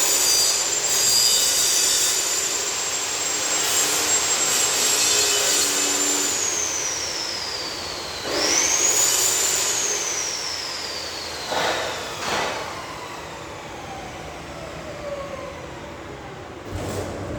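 Electric grinder run twice. Each time the motor spins up quickly to a high whine and then winds down slowly as it coasts to a stop. The first run holds steady for several seconds; the second starts winding down almost at once. A couple of knocks come after the second run.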